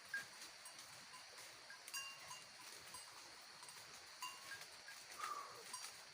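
Faint, scattered tinkling of small bells worn by grazing goats.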